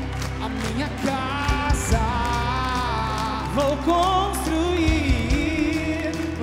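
Live band playing a Catholic pop-rock worship song, with a singer's voice over bass and drums.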